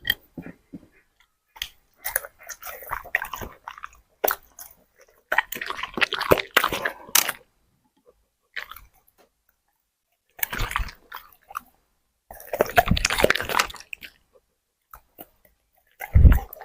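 A dog chewing and crunching food close to the microphone. The chewing comes in bursts of half a second to a few seconds, with silent pauses between them.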